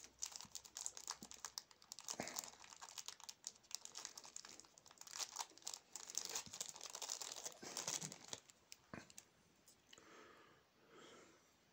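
Small plastic zip bag crinkling and rustling as it is handled and opened, with many small clicks, going quiet after about nine seconds.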